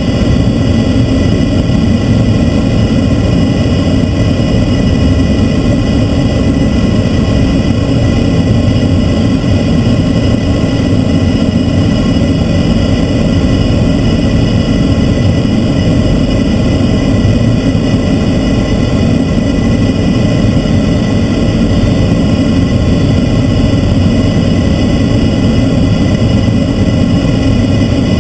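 Transall C-160's two Rolls-Royce Tyne turboprop engines running steadily, heard inside the cockpit on approach to land: a loud low rumble with several steady high whining tones above it.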